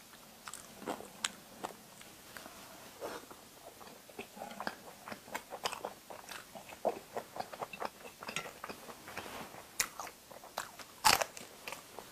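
Close-up eating: crunchy bites and chewing in an irregular series of short crunches, with one louder crunch near the end.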